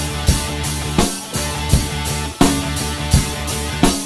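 Drum kit played in a steady rock groove: bass drum and snare with evenly spaced cymbal strokes and a strong accented hit about every 0.7 s, over a backing track with bass.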